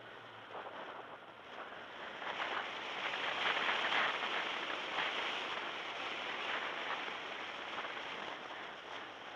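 Rushing wind and road noise from a moving car, picked up by the camera microphone. It builds over the first few seconds, then holds steady with small ups and downs.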